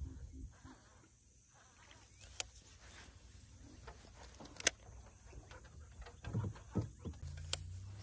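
A few sharp, single clicks from handling a baitcasting rod and reel, with some soft low knocks. A low steady hum comes in about seven seconds in.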